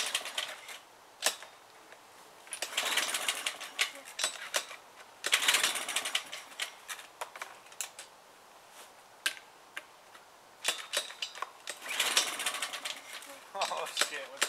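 Dry leaf litter and brush rustling and crunching in three bursts, with scattered sharp clicks and twig snaps; no engine running.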